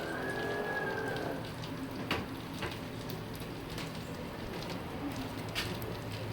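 Freshly baked chicken and its juices sizzling and crackling in the hot baking pan straight out of the oven, with a few light clicks and a brief rising tone at the very start.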